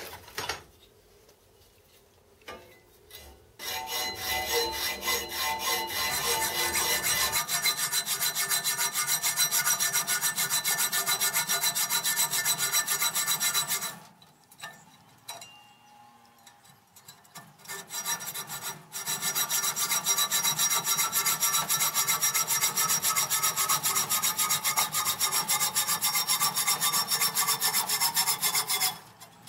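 Hand hacksaw cutting through a cast aluminium casting clamped in a vise, with fast back-and-forth rasping strokes and a ringing blade. The sawing starts a few seconds in, pauses for about five seconds midway, then carries on.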